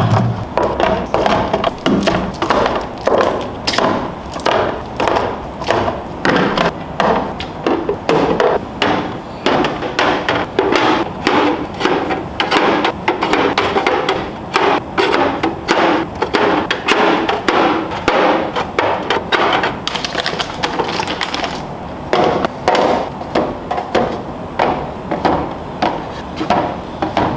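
A knife chopping on a wooden cutting board in quick, steady strokes, about two or three knocks a second, easing briefly about two-thirds of the way through before going on.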